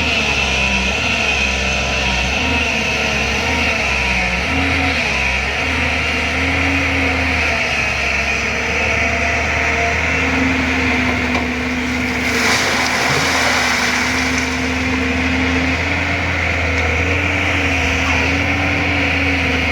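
JCB 205 LC excavator's diesel engine running under working load, its pitch rising and falling as the hydraulics are worked. A short burst of noise about twelve seconds in.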